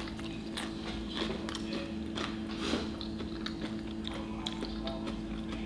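A person crunching and chewing crisp tortilla chips: irregular crunches over a steady low hum.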